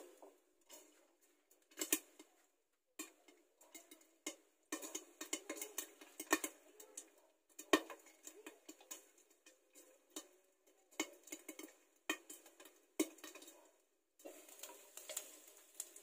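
Pork fat rendering in a covered nonstick frying pan: scattered pops and crackles of spattering fat over a faint sizzle, coming in uneven bursts.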